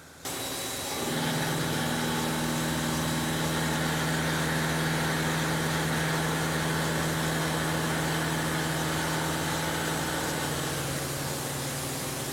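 CNC turning center running: a steady machine hum of several tones over an even hiss, its pitch dropping slightly near the end.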